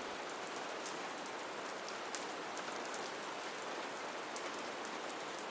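Steady, soft rain ambience: an even hiss of falling rain with faint scattered drop patters.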